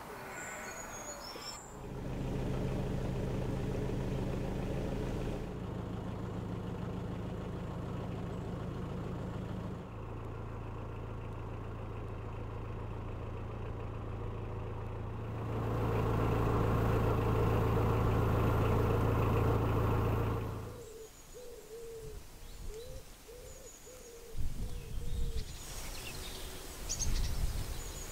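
A steady low hum that shifts abruptly a few times, then a bird hooting in a short run of repeated calls near the end.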